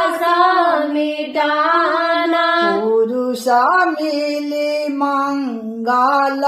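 A woman singing a Hindi devotional Holi bhajan, drawing out long sung vowels that bend up and down in pitch and dropping to a lower note about halfway through.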